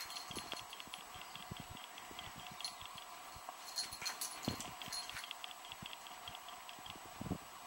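A young cat wrestling a plush teddy bear on a bed: soft, irregular thumps and rustling of the duvet, with runs of faint light ticking.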